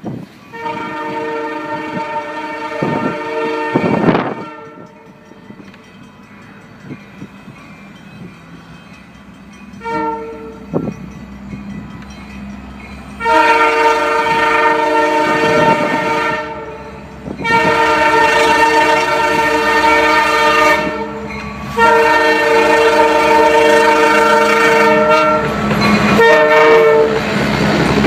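Nathan Airchime K3H horn on a CN SD75I locomotive, fouled so its chord sounds off. It gives a long blast, a brief toot about ten seconds in, then three long blasts close together, over the steady rumble of the passing train.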